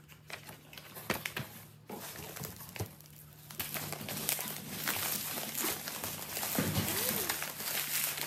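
Plastic packaging crinkling as it is handled and unwrapped by hand, sparse at first, then denser and louder from about halfway through.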